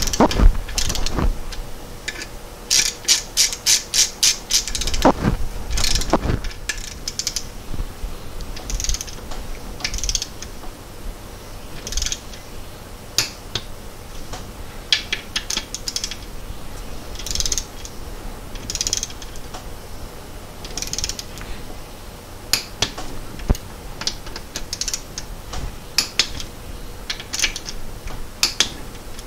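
Hand ratchet wrench clicking as the transmission's main shaft bearing clamping bolts are run in, with a fast even run of clicks a few seconds in. Then come a couple of heavier metal knocks and scattered single clicks from the wrench and tools.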